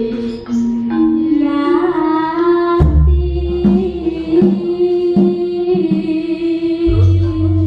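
Javanese gamelan playing: bronze gong-chimes and metallophones sound steady pitched notes with regular strikes, while a woman sings a gliding vocal line in the first half. A deep gong stroke comes about three seconds in and another near the end.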